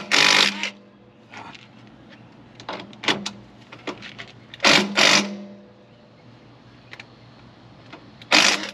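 A handheld power tool's motor run in short bursts, with stops between: a loud double burst about halfway through and another just before the end.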